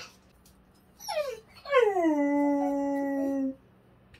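Unneutered male Samoyed howling: a short falling yelp about a second in, then one long howl that slides down in pitch, holds steady and breaks off suddenly. He is calling to a female in heat who has been shut away from him.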